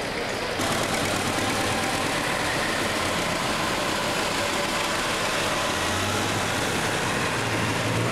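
Turbocharged diesel engine of a super stock pulling tractor running loud and steady while the tractor waits at the line; the sound steps up slightly about half a second in.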